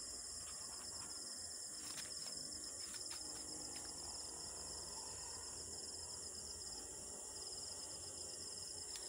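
Steady, high-pitched trilling chorus of night insects, with a few faint clicks about two to four seconds in.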